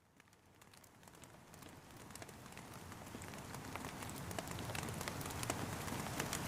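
Rain falling, with many individual drops ticking sharply over a steady hiss, fading in from silence and growing steadily louder.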